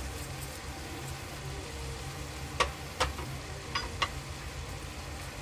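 Sliced bitter gourd and onion frying in a kadhai over a medium gas flame, a steady low sizzle. A few light clicks come between about two and a half and four seconds in, as spices are spooned in.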